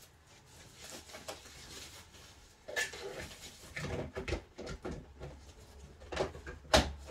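Plastic wrapping rustling and cardboard packaging knocking as a computer monitor is pulled from its shipping box. Fairly quiet at first, then from about a third of the way in a run of rustles and crackles with a few sharp knocks, the loudest near the end.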